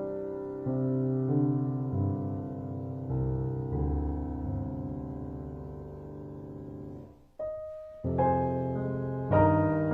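Piano music: slow held chords changing every second or so, thinning to a single note just after seven seconds before louder chords come back in.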